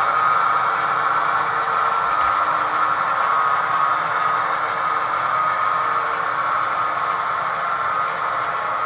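HO scale model freight cars rolling across a model steel truss bridge: a steady rolling rumble of metal wheels on rail, with a few faint clicks.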